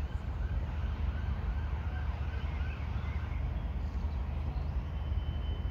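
Faint distant siren yelping in quick rising-and-falling sweeps, about three a second, which fade out a little past halfway, over a steady low rumble.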